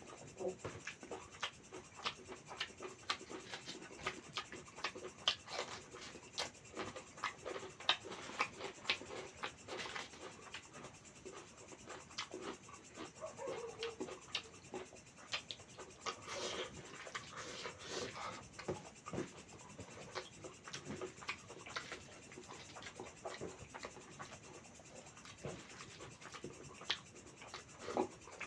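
Close-up eating sounds of someone eating mutton curry with rice: chewing with a steady, irregular run of small wet clicks and smacks.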